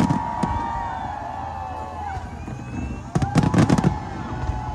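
Fireworks going off in two clusters of rapid bangs, one right at the start and one about three seconds in. Several whistling tones glide up and down throughout.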